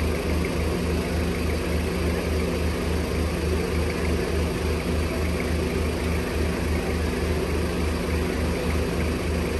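Van engine running, a steady drone with a low throb about three or four times a second.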